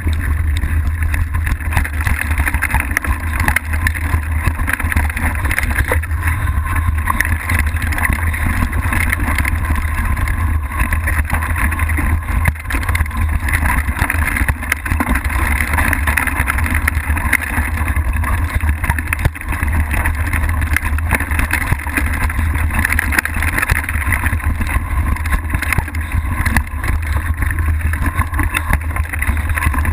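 Mountain bike riding downhill fast on a rough dirt trail, heard through a camera mounted on the bike: a continuous low rumble of tyres and frame over the ground, with many small knocks from bumps and rattles.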